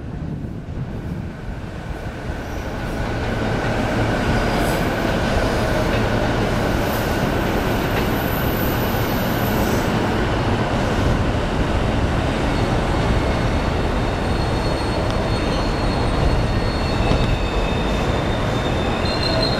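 An E231-series electric commuter train pulling into a station platform. The rumble of its wheels and running gear grows louder over the first few seconds, then holds steady. Thin high squeals come and go over the rumble.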